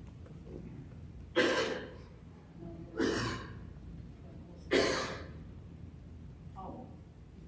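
Three loud breathy puffs, like sighs or exhales close to a microphone, about a second and a half apart, each starting suddenly and fading over about half a second, with a fainter fourth near the end.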